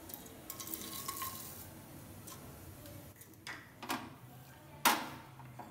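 Quiet kitchen handling sounds: dry protein oats poured from a scoop into a nonstick saucepan on a gas stove, then a few light knocks as the pan is handled, the loudest about five seconds in.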